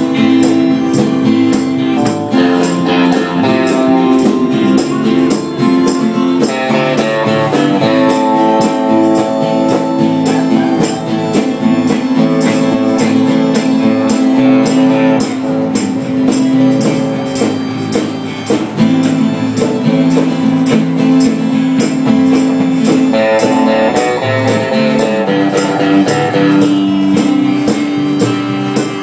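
A band playing music with guitar and a steady percussion beat.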